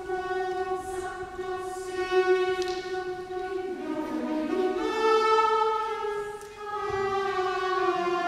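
Mixed chamber choir and string orchestra performing a Baroque choral mass movement. The music starts with one long held chord, then moves through new chords from about four seconds in.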